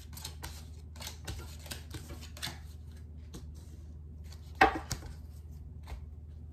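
Tarot cards being handled on a desk: scattered light clicks and rustles, with one sharp knock a little past halfway, over a low steady hum.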